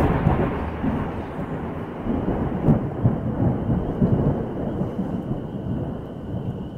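Loud thunder rumbling from the very start, with a louder crack about two and a half seconds in, then rolling on and slowly fading.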